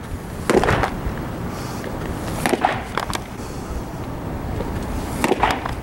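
Baseball pitches popping into a catcher's leather mitt: a sharp smack about half a second in from a fastball, and another near the end from a curveball, with a couple of lighter knocks in between.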